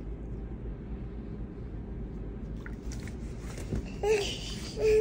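A toddler's short voiced sounds, once about four seconds in and again just before the end, over a steady low room hum.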